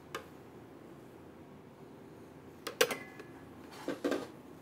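Kitchen handling noises while food is plated: a small click, then a sharp clink with a short ring nearly three seconds in, and a couple of knocks about four seconds in, as utensils and containers are handled.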